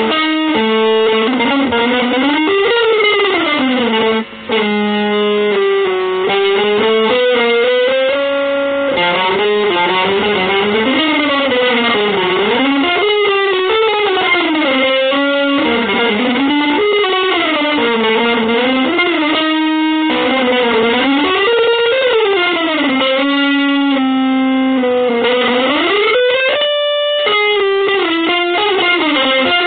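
Electric guitar playing a single sustained melodic line that slides and bends continuously in pitch, with a brief break about four seconds in.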